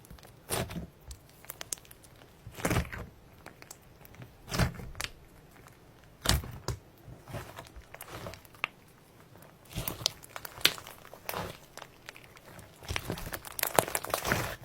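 Slime being squeezed and pressed by hand, giving crackling, popping squishes. It comes in separate squeezes about every two seconds, then in a denser run of crackles over the last few seconds.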